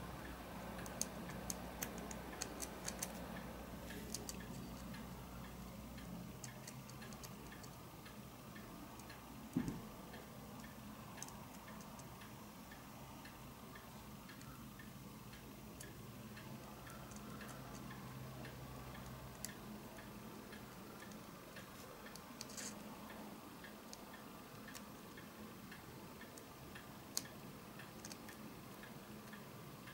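Faint, steady, even ticking, with a few sharp light clicks of a thin metal tool against the diecast metal baseplate of a Matchbox model car.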